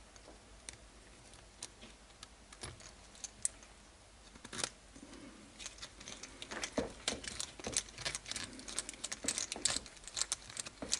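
Small clicks and light rattles of plastic RC-car suspension parts and a metal hex driver being handled and fitted together. A few separate clicks at first, then a busy run of clicking in the second half.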